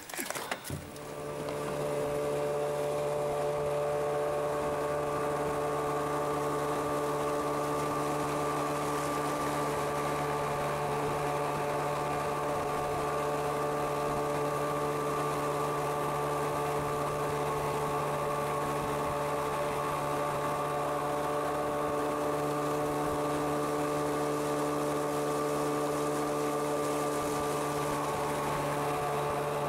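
Motorboat engine running at a steady cruising speed, an even, unchanging drone that fades in over the first couple of seconds.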